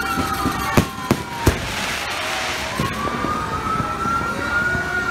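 Aerial fireworks going off: three sharp bangs in the first second and a half, then crackling. Under them a siren wails slowly, falling in pitch, then rising again in the second half.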